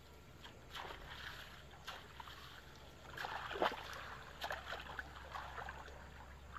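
Shallow water sloshing and dripping as a wet cast net is gathered up and handled by someone wading, with small splashes and clicks, busiest about three to four seconds in.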